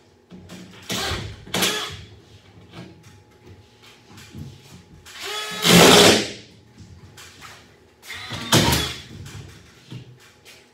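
Collated drywall screw gun running in several short bursts as it drives screws up through drywall into ceiling joists. The loudest burst, about halfway through, spins up rising in pitch.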